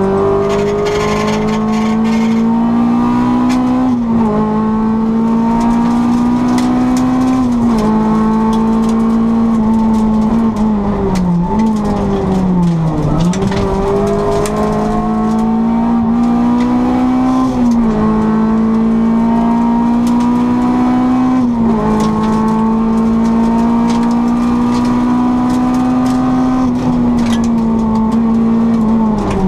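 Honda Civic 1600's four-cylinder engine driven hard on track, its pitch climbing steadily and then stepping down at each gear change every few seconds. About eleven to thirteen seconds in the pitch falls further as the car slows for a corner, then it climbs again.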